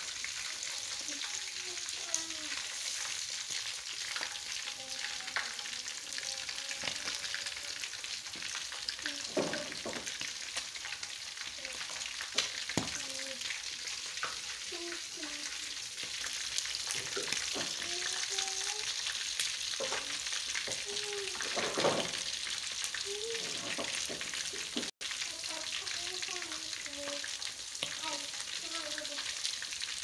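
Meat pieces deep-frying in bubbling oil in an aluminium wok: a steady sizzle with scattered pops and crackles.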